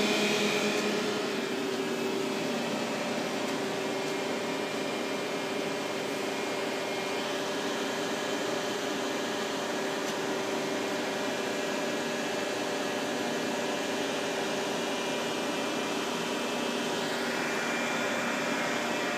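Steady hum of a powered-up Topper TNL-100A CNC turning center, with a few steady tones over an even noise of the kind made by cooling fans and a pump.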